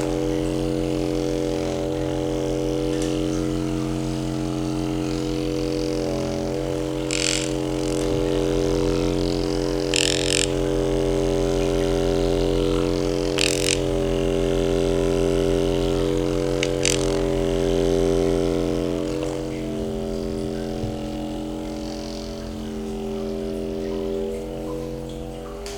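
Steady mechanical hum from a small electric motor, holding a constant pitch with only slight shifts, cutting off near the end; a few short hissing sounds come over it.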